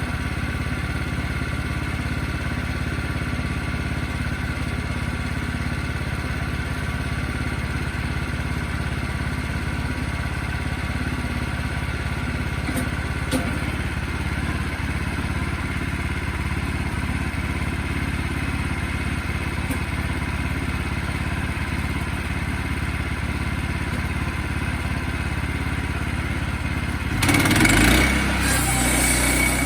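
Sawmill engine running steadily. Near the end the sound suddenly gets louder, a pitch sweeps downward, and it settles into a different steady running sound.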